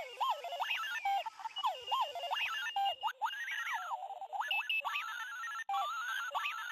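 Clocky alarm clock sounding its electronic alarm: a rapid, warbling string of beeps that swoop and step up and down in pitch.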